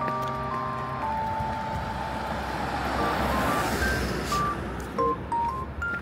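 Background music of simple electronic notes, held and stepping in pitch, over a road vehicle passing that grows louder to about three or four seconds in and then fades.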